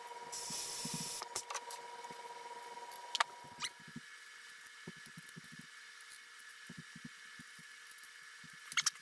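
A short hiss of air from a pneumatic rivet squeezer worked by a foot pedal, then scattered clicks and light knocks of aluminium parts and tools being handled. The sharpest click comes about three seconds in and a quick cluster near the end.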